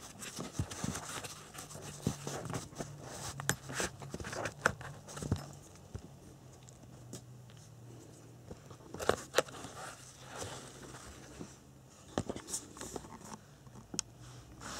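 Fabric tool bag being handled: the flap rustles and the tools inside give scattered light clicks and taps, in irregular bunches.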